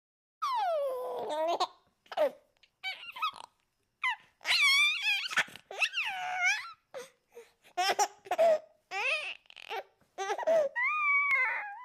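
Baby laughing in a string of high-pitched giggles and squeals, broken by short pauses, with a longer drawn-out squeal near the end.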